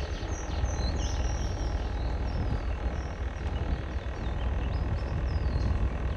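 A boat's engine running steadily with a low rumble, while birds chirp in short high notes over it, in clusters near the start and again toward the end.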